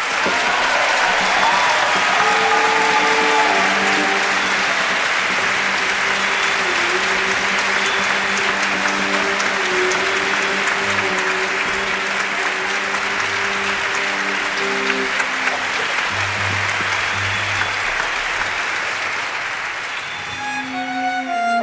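Audience applauding, with the orchestra's bowed strings holding long, steady notes underneath. Near the end the applause dies away and the strings begin the song's introduction.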